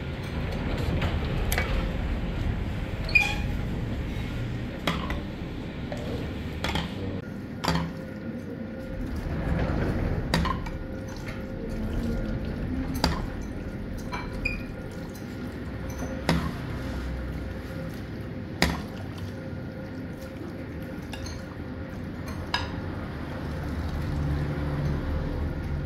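Metal ladle clinking repeatedly against a steel cooking pan and plate while hot broth is scooped and poured over a plate of sheep's head and trotter meat, with liquid splashing between the clinks.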